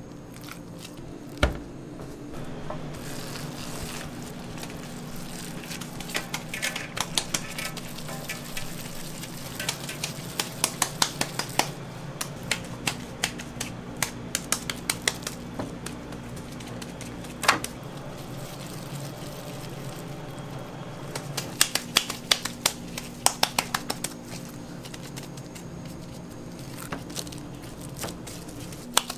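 Gloved hands patting and slapping raw ground meat into balls and patties: runs of quick, sharp, wet slaps, with a single louder thump about one and a half seconds in and another just past halfway. A steady low hum sits underneath.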